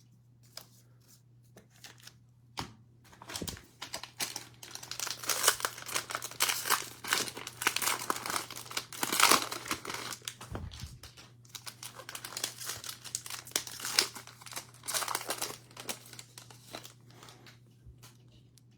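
Plastic cellophane wrapper of a basketball card cello pack being torn open and crinkled by hand: a dense run of crackles and rustles that builds a few seconds in and dies away near the end.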